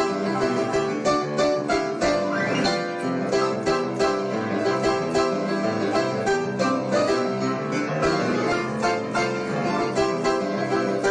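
Upbeat instrumental music with plucked string instruments over a steady, quick beat.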